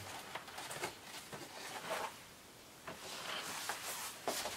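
Faint rustling and light knocks of toy packaging being handled, with a brief louder rustle about two seconds in and a few small taps near the end.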